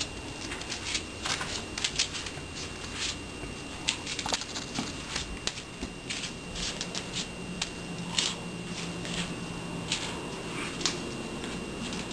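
Irregular quick clicks and scratches of a cat's claws skittering on a tile floor as it pounces on and swats a feather boa toy, over a faint steady high whine.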